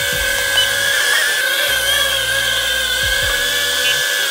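First Step RC FPV 101 micro quadcopter in flight, its motors and propellers giving a steady high whine that wavers slightly in pitch as it is steered.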